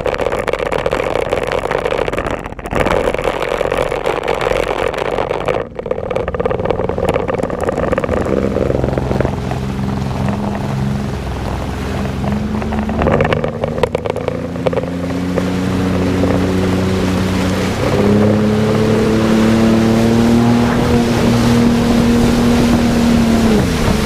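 Jet ski engine running under way over rushing water and wind. About eight seconds in, its engine note comes through and climbs in steps as it speeds up. It holds high for several seconds, then drops near the end.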